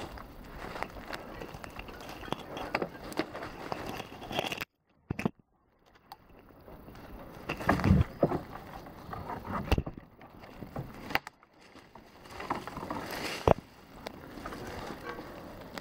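Rustling and scraping of leaves, branches and clothing against a chest-mounted camera as a stopped mountain biker moves about in the forest undergrowth, with a few heavy knocks. The sound cuts out almost completely for about a second and a half around five seconds in.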